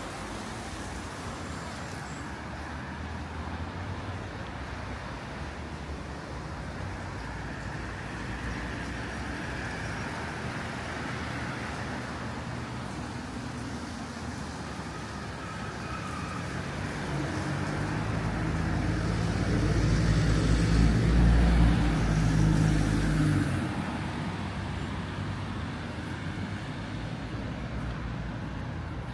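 Road traffic: a steady background hum, then a motor vehicle passes close by, building about two-thirds of the way through to a loud low engine drone and dropping away quickly a few seconds later.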